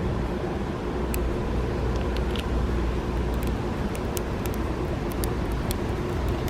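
Steady low rumble of a running car, with a faint steady hum and a few light clicks.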